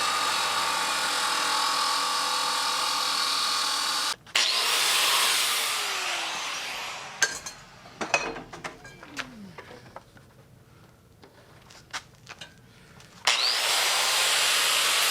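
A disc power tool cutting steel in bursts: a steady run that stops about four seconds in, a second run that spins up and winds down with a falling whine, a few seconds of sharp metal knocks and taps, then the tool spins up again near the end.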